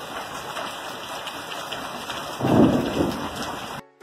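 Rain falling steadily, with a loud rumble of thunder about two and a half seconds in that fades over about a second; the sound cuts off abruptly just before the end.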